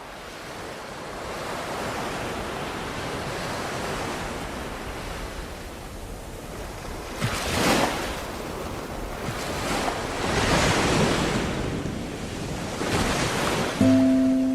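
Ocean surf fading in, then waves washing in with louder surges about every three seconds. A few music notes begin near the end.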